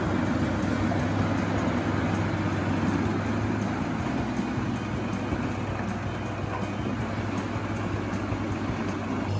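Jenz HEM 820 mobile wood chipper running steadily, a dense machine drone with a low hum, as it reduces logs to chips. It cuts off abruptly at the end.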